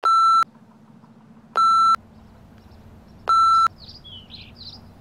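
Three identical electronic beeps, evenly spaced about a second and a half apart, each a short steady tone. A few brief bird chirps follow near the end, over a faint low steady hum.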